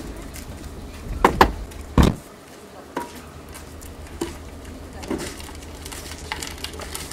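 Two sharp knocks, then a heavy thud of a car door shutting about two seconds in; a few light clicks and taps follow inside the car cabin.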